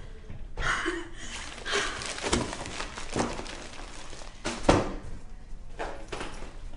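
A few short knocks and clunks, then an interior door closing with a thunk about two-thirds of the way in, the loudest sound.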